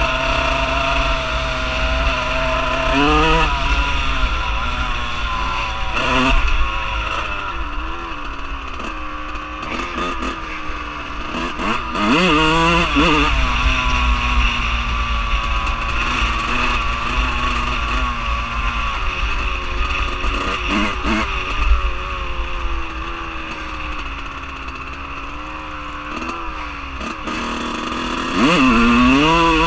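Dirt bike engine heard from on board while riding, its pitch climbing and dropping again and again as the throttle is opened and closed through the gears, with sharp revs about three seconds in, around twelve seconds, and near the end.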